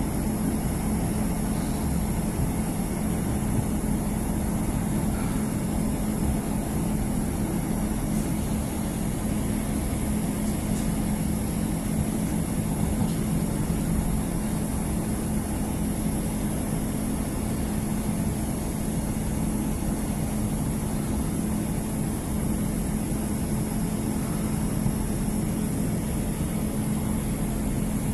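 Inside a Class 150 Sprinter diesel multiple unit under way: a steady drone from the underfloor diesel engine, with a constant low hum, over an even rumble of wheels on rail.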